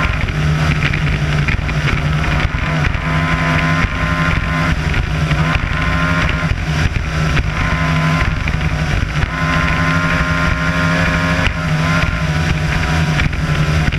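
Mercury 225 Sport XS outboard, a V6 two-stroke, running at speed with a steady, unchanging pitch, over the rush of water and spray along the hull.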